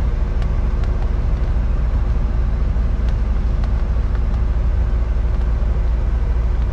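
Volvo VNL860 semi truck's diesel engine idling with a steady low rumble and hum, heard inside the cab, with a few faint clicks.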